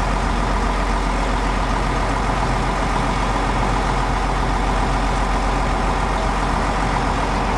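The Prospector diesel railcar's engine running steadily while the train stands at the platform, a constant hum with no change in pitch.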